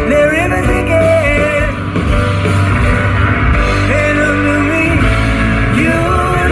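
Live song performance: a male voice singing a gliding melody over guitar and a steady bass.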